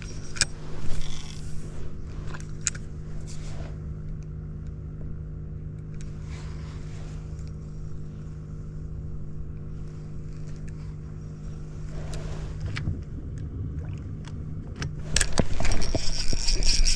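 A motor hums steadily at one low pitch, with scattered light knocks and clicks, and cuts off about twelve and a half seconds in. Near the end comes a louder stretch of rustling handling noise.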